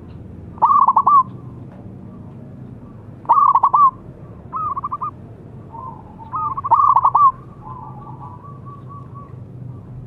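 Zebra dove (perkutut) cooing: three loud phrases about three seconds apart, each a quick run of notes, with fainter cooing phrases between them.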